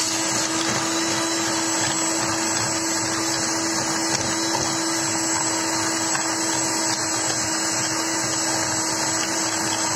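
Electric hand mixer running at one steady speed, its beaters whipping a coffee, sugar and hot-water mixture into froth: a constant motor whirr with a steady hum through it.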